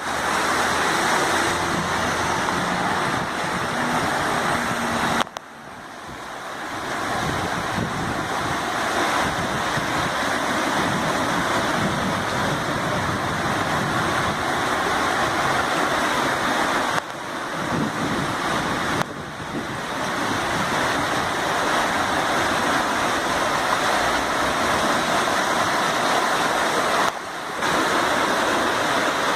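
Steady rush of floodwater from an overflowing stream pouring along a flooded street, broken by several abrupt cuts.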